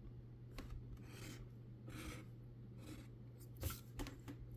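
A metal dog tag scraping the latex coating off a scratch-off lottery ticket in a few short, faint strokes, with small clicks as it touches the card.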